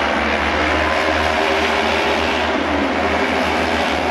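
Several auto race motorcycles racing around an oval track, their engines blending into one loud, steady drone with a low hum beneath.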